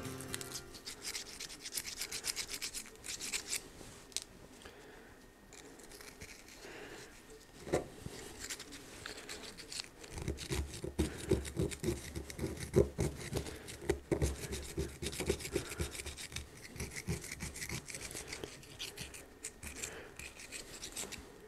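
Small screwdriver scraping caked rust and sludge out of the inside of a steel socket: rapid, irregular scratching and rasping. The strokes get heavier and louder about halfway through.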